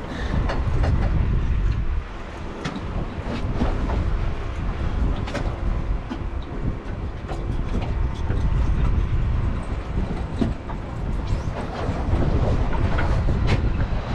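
A panga running across choppy water: the outboard motor drones under a steady low rumble, and the hull knocks and slaps irregularly on the waves.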